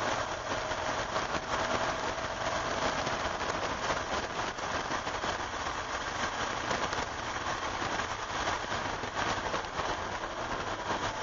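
A 1988 Porsche 911's air-cooled flat-six pulling at speed, heard from inside the cabin under a steady hiss of wet-road spray and rain. The engine note rises slowly, then drops near the end as the car slows for a corner.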